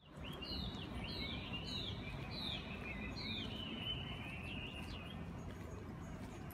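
A small bird chirping: a quick series of about five short falling chirps, then a brief twitter, over steady outdoor background noise.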